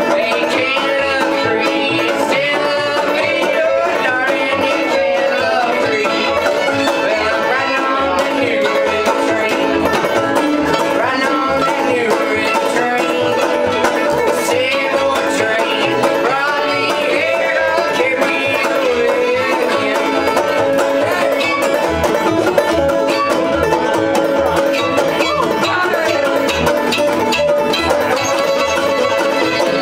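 Live bluegrass string band playing a fast tune: fiddle, banjo and upright bass together at a steady level.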